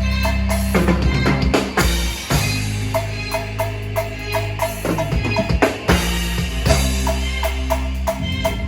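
Band playing live at a soundcheck: a drum kit with kick and snare over sustained bass notes that change every second or two, with a steady ticking beat on top.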